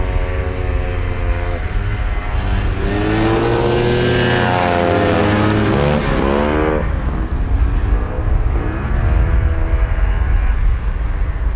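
Several vintage racing snowmobiles' two-stroke engines revving as the sleds race around the ice track. One engine's pitch climbs, then drops sharply about seven seconds in as the rider backs off.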